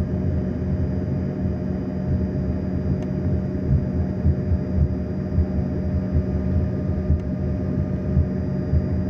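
Passenger aircraft's engines droning steadily, with a low rumble and a few steady tones heard inside the cabin.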